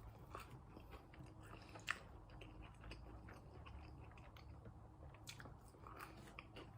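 Faint close-up chewing of a chicken nugget: soft wet mouth clicks and small crunches, with one sharper click about two seconds in.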